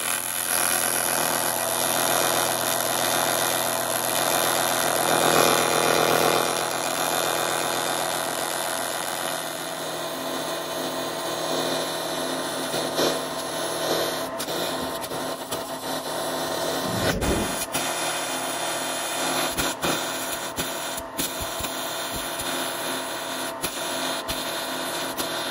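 TIG welding arc on aluminium: a steady electric buzz with an even, layered tone, the AC arc fusing an aluminium tube to an aluminium flange. A few faint ticks sound through it in the second half.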